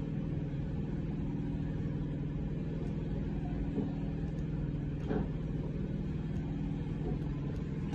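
Steady low background hum, with a couple of faint short sounds about four and five seconds in.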